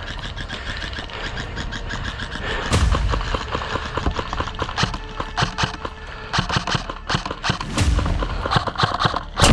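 Airsoft guns firing in a firefight: runs of rapid sharp cracks and pops from several guns, with the loudest shot near the end.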